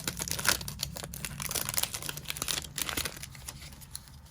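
Foil booster pack wrapper crinkling as it is torn open and handled, a dense crackle that thins out after about three seconds.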